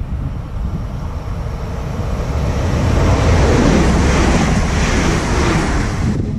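An ÖBB Railjet express passenger train passing at speed on the near track. The rush of its wheels and air builds from about two seconds in, is loudest in the middle, and cuts off abruptly near the end. Wind buffets the microphone throughout.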